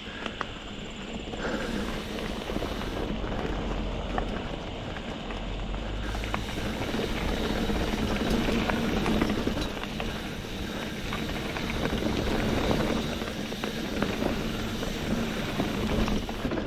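Mountain bike riding along a dirt trail: a steady rush of tyre noise over the dirt and stones, with frequent small clicks and rattles from the bike, a little louder towards the middle.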